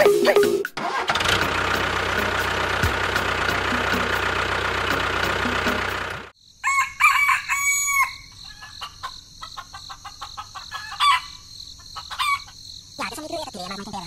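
A steady motor running for about five seconds, then cutting off abruptly. A rooster crows once, over a steady high chirring of crickets, with scattered small clicks.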